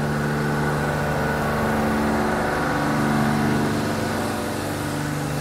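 Steady mechanical hum of a car wash's machinery next door, with several held tones. It swells slightly about three seconds in and eases after.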